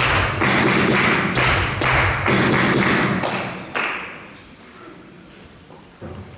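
A table tennis crowd cheering between points, with a rhythmic beat about twice a second that fades out about four seconds in. A single short knock sounds near the end.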